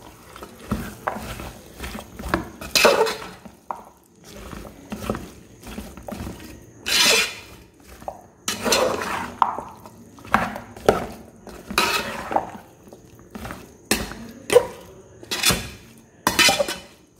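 Steel spoon scraping and clinking against an aluminium pot while stirring chopped gooseberries into a thick pickle paste, in irregular strokes every second or two.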